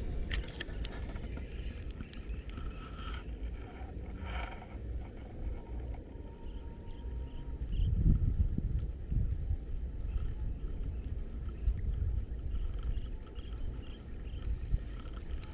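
Insects trilling steadily in a fast, high-pitched pulsing chorus, with low rumbling noise on the microphone that swells about eight seconds in.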